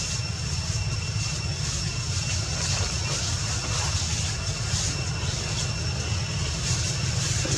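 Steady outdoor background noise: a continuous low rumble under a high, faintly pulsing whine.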